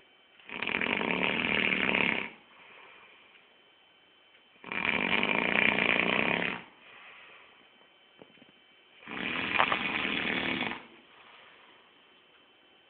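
A man snoring loudly in sleep: three long snores of about two seconds each, evenly spaced some four seconds apart, each followed by a fainter breath.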